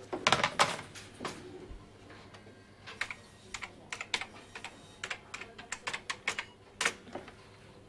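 A telephone handset knocks down onto its desk-phone cradle about half a second in, then a computer keyboard is typed on in irregular clicks of keys.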